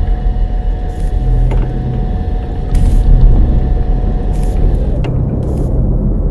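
Loud, dark sound design for a horror trailer: a low rumbling drone with steady held tones, cut by four short bursts of hiss about a second and a half apart.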